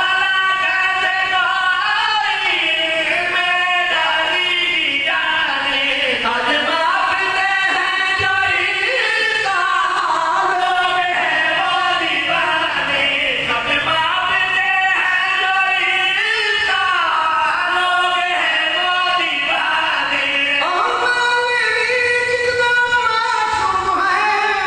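A zakir's solo voice singing a slow, drawn-out verse in a chanting style, with long held notes that slide up and down in pitch.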